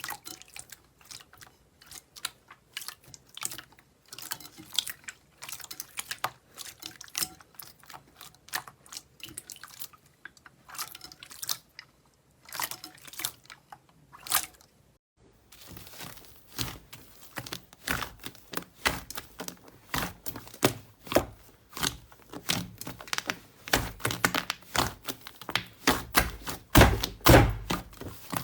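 Hands squishing and poking slime, a dense run of sticky crackling clicks and pops. After a brief quiet break about halfway, the crackles come back louder, with deeper squelching thumps near the end.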